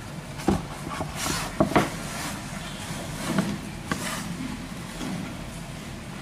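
Cardboard smartphone box being opened by hand: the inner box slides against its sleeve with a brief scrape, and the lid and box edges knock lightly on the table several times.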